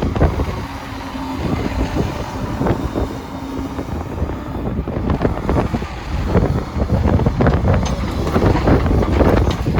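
Komatsu PC200LC-6LE hydraulic track excavator running, with wind buffeting the microphone.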